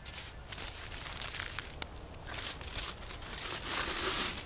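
Aluminium foil crinkling in several bursts as it is folded and pressed shut around pieces of fish, loudest near the end.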